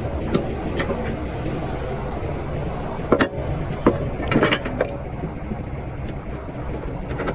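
Excavator's diesel engine running steadily, with a few sharp knocks and clanks from the machine about halfway through.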